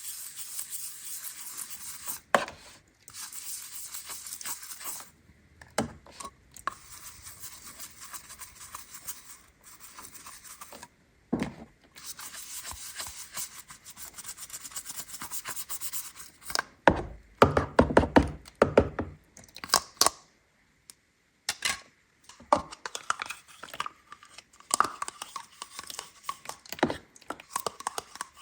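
Hands unpacking a toy playset: packaging rustling and rubbing in long stretches, broken by sharp clicks and knocks of small plastic pieces, with a busier clatter a little past the middle.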